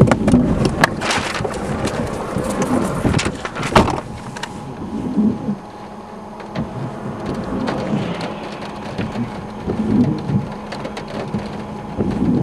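Thunderstorm noise of heavy rain and wind, with a dense patter of sharp hits over the first four seconds that eases off after, leaving a rushing rain noise broken by low rumbles every couple of seconds.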